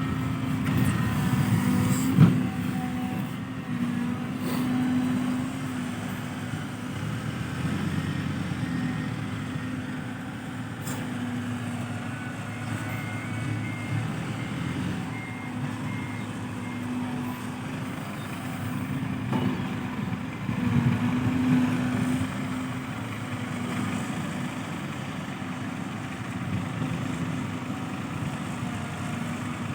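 Hino Mega 500 diesel dump trucks running steadily, with a reversing beeper sounding a run of short beeps about midway. A single sharp knock comes about two seconds in.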